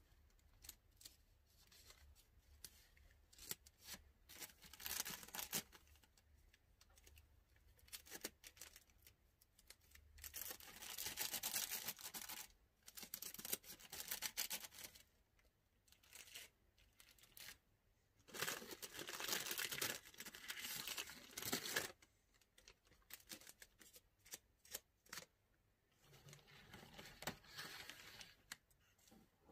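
Clear plastic bag crinkling and rustling as patchouli incense sticks are slid into it, in several bursts of a second or two, with scattered light clicks of the sticks being handled in between.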